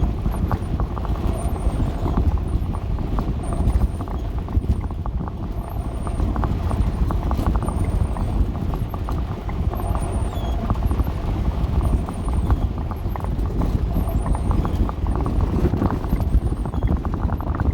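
Dodge A108 van driving over a rough, wet dirt road: a steady low engine and road rumble with constant rattling and knocking from the body and loose contents.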